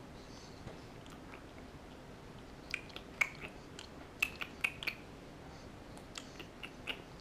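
Infant sucking on her fingers: a scatter of small wet smacking clicks, in a cluster about three seconds in and another near the end.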